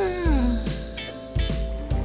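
Background music with a steady beat, and a falling pitch glide in the first half-second.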